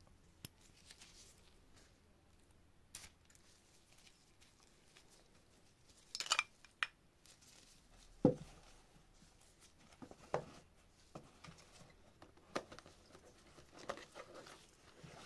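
Gloved hands handling a glass perfume bottle and its cardboard box: scattered soft rustles, clicks and taps, a short hissy rustle about six seconds in, and a sharp knock about eight seconds in as the bottle is set down on the table.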